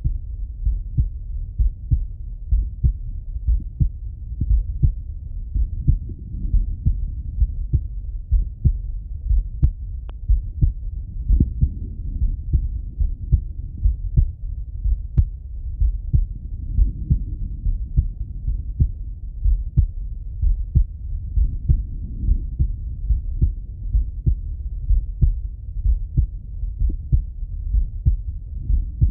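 A man's slow, regular heartbeat heard through a Littmann stethoscope, its lub-dub beats about once a second. Soft breath sounds swell in and out every five or six seconds.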